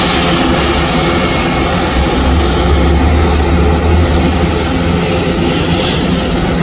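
Airbus A400M's four turboprop engines and eight-bladed propellers running loud and steady as the aircraft rolls along the runway, a deep propeller drone with a few steady low tones. The low drone swells about two to four seconds in.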